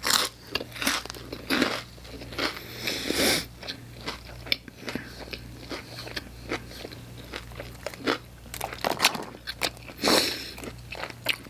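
Close-miked biting and chewing of pizza topped with crunchy Hot Cheetos: irregular crisp crunches and mouth sounds, with a few louder bites.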